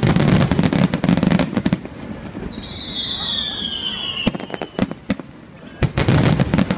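Aerial fireworks: a rapid volley of shell bursts and crackling reports with a low rumble, then a high whistle falling slowly in pitch for about two seconds, then another volley of bursts near the end.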